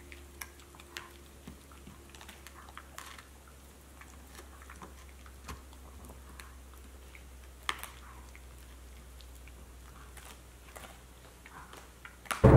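Siberian husky gnawing on a chew bone: scattered soft crunches and clicks of teeth on the bone, with one sharper crack about eight seconds in.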